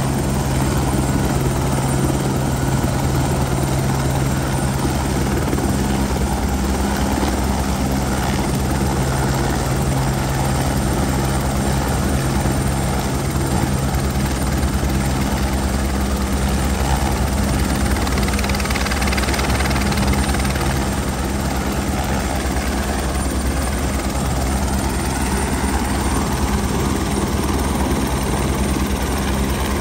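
Airbus H125 light helicopter running on the ground: a steady turbine and main-rotor sound that holds level without spooling up or down.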